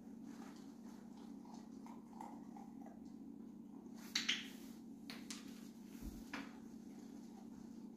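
A dog-training clicker clicks twice in quick succession, press and release, about four seconds in, marking the dog's engagement with the cardboard box. Softer taps and a dull thump on the wooden floor follow.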